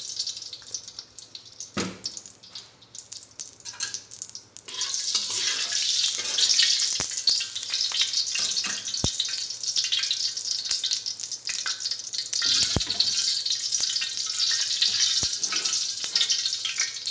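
Ghee and oil heating in a pan, sizzling and spitting: quiet at first, with a knock about two seconds in, then a steady high sizzle from a little before five seconds, broken by a few sharp pops.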